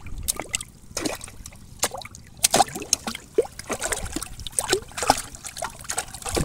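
Water splashing and gurgling in irregular bursts as a bamboo tube trap is pulled and jerked up through shallow muddy water.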